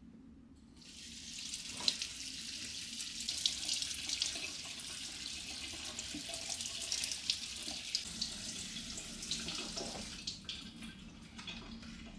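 Tap running water into a sink. The flow starts about a second in and eases off near the end, with a few small knocks.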